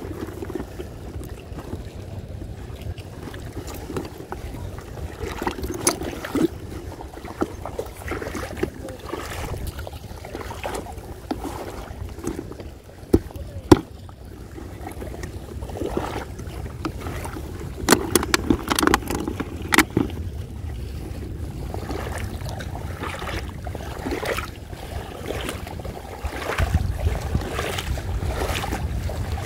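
Shallow seawater sloshing around a person wading through it, with wind buffeting the microphone. There are a few sharp clicks and knocks from the scoop net and basket being handled, the loudest about halfway through.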